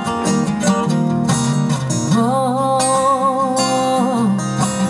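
Two acoustic guitars strummed in a country-folk song. From about two seconds in, a long wavering sung note is held for about two seconds over the strumming.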